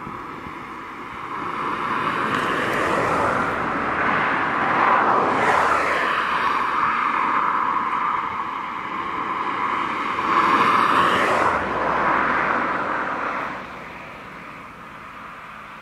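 Air horn of an EMD GT26MC diesel locomotive (South African Class 34-600) sounding in several long, loud blasts. The horn stops about thirteen and a half seconds in.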